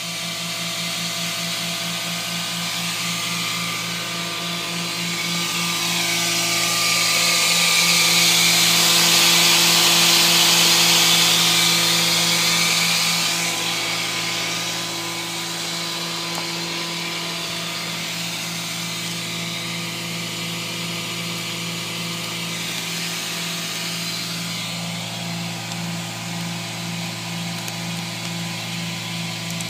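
Hydraulic rock splitter's power unit running with a steady hum. A louder hiss swells about six seconds in and fades again about eight seconds later as the splitter is driven.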